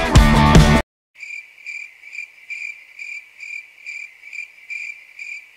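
Rock music cuts off under a second in. After a short gap of dead silence, a cricket chirps steadily at about two chirps a second, over a background with no other sound.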